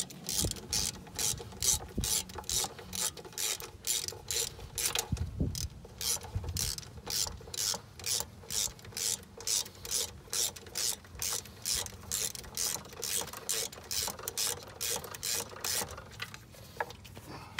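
Socket ratchet clicking in quick, even back-strokes, about two or three a second, as it backs out the intake plenum bolts; the ratcheting stops near the end.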